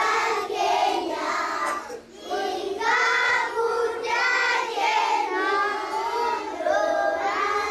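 A group of young children singing together in unison, a thank-you song, with a brief pause for breath about two seconds in.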